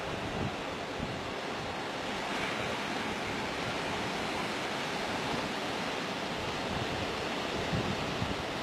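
Sea surf washing steadily onto the shore, with wind buffeting the microphone in low, uneven gusts.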